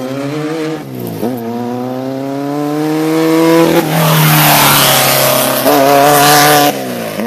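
Desert race buggy's engine revving hard as it accelerates down a dirt road and passes close by. The pitch climbs, dips briefly at a gear change about a second in and climbs again. It is loudest with a rushing hiss as the buggy goes by about four seconds in, and the pitch drops near the end as it pulls away.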